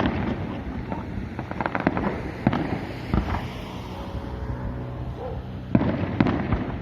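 Fireworks going off: repeated loud bangs of shells bursting, with crackling between them, the heaviest bangs at the start and again about six seconds in.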